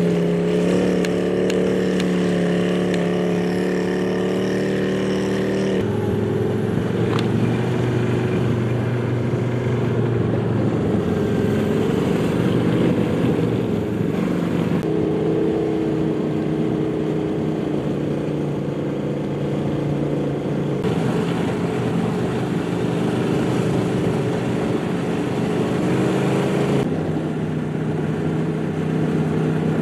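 Polaris snowmobile engine running steadily while the sled is ridden, jumping abruptly to a different steady pitch about four times.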